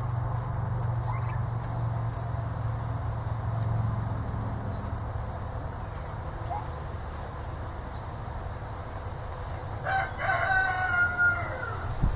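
Young turkeys feeding on pulled grass: soft pecking and rustling, a few short chirps, and about ten seconds in a louder trilling call lasting about a second and a half. A low hum fades out about halfway.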